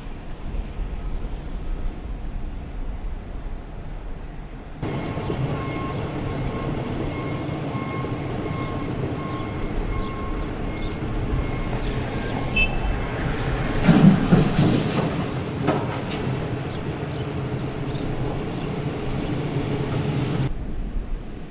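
Heavy diesel earth-moving machinery running on an excavation site, a steady low rumble that grows louder after about five seconds. A repeating beep sounds for several seconds, and a louder burst of noise comes about fourteen seconds in.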